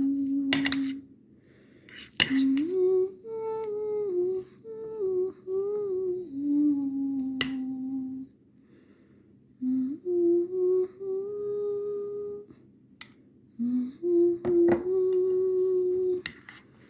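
Background music carried by a hummed melody in held, stepping notes with short pauses between phrases. A few sharp clicks, like kitchen utensils knocking on a dish or pan, break in now and then.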